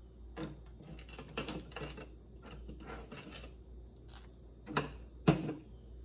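Irregular small clicks and taps of screws and a screwdriver against a chainsaw carburetor body as its cover screws are fitted back in, with one sharper knock near the end.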